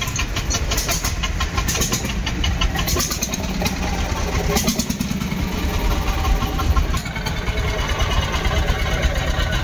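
Vintage Landini tractor engines idling with a steady, rhythmic beat.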